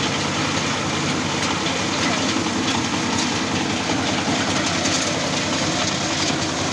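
Engine-driven areca nut dehusking machine running steadily, a continuous dense mechanical noise with an even engine hum beneath.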